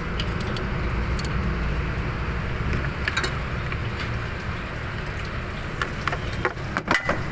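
Scattered sharp metallic clicks of hand tools working the bolts while the water pump is being unbolted, over a steady low rumble.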